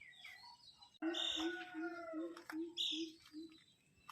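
Birds calling outdoors: about a second in, a run of about seven evenly spaced low hooting notes starts, overlapped by higher chirps and sliding calls.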